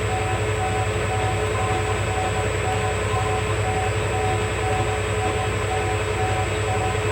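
Metal lathe running steadily while facing off the end of a bushing stock, a constant machine hum with a fainter tone pulsing on and off.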